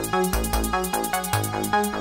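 Electronic music played live on analog modular synthesizers: a fast sequenced synth bass line of short repeating notes over a steady pulse of quick high ticks.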